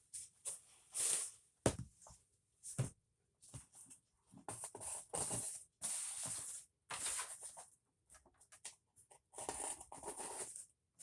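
Packaging rustling and crinkling in irregular bursts as a comic book is unwrapped and handled.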